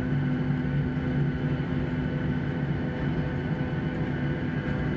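Steady drone of a parked airliner heard from inside the cabin, with a low hum of several steady tones.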